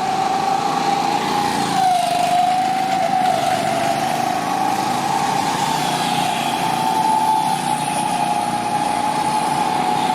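Small go-kart engines running steadily as the karts circle the track, a high engine drone whose pitch dips slightly about two seconds in and then creeps back up.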